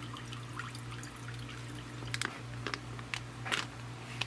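Meat juices pouring and dripping from a plastic vacuum-sealer bag into a glass saucepan, with several short sharp clicks in the second half, over a steady low hum.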